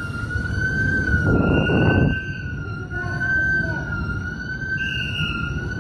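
A siren sounding one high, slowly wavering tone over a steady low background rumble. A second, higher tone comes in twice, and a short rush of noise about a second and a half in is the loudest moment.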